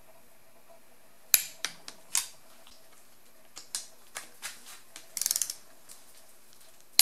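Hand tools clicking and clinking against metal while the head bolts of a Saturn S-Series engine are being torqued. There is a sharp click a little over a second in, then scattered clicks and a short rapid ratcheting rattle about five seconds in.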